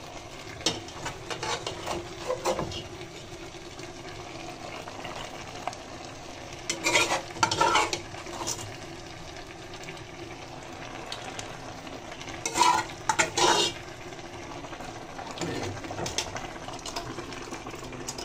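A metal spoon stirring and scraping in a pot of hot soup as parboiled fish is turned in. The clinks and scrapes against the pot come in bursts, the loudest about 7 and 13 seconds in, over a steady faint sizzle from the simmering soup.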